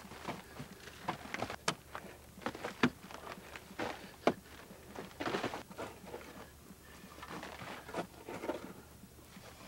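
Digging in a tomb shaft: a hand tool striking and scraping compacted earth, with irregular knocks and a few sharper strikes, between stretches of scraping.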